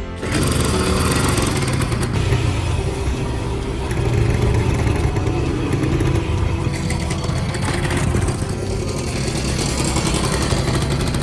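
Restored Honda 70cc four-stroke single-cylinder motorcycle engine running, cutting in suddenly at the start, with its level swelling and easing as the revs change.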